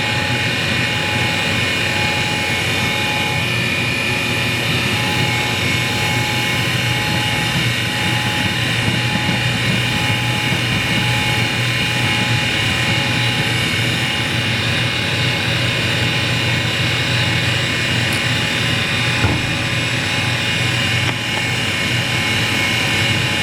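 Hall valve grinder running with no valve on the stone: a steady motor hum with a constant high whine, unchanging throughout.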